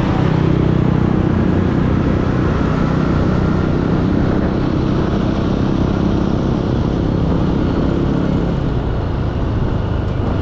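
Motor scooter's engine and road noise heard from the rider's seat: a steady low hum at speed that eases off near the end as the scooter slows.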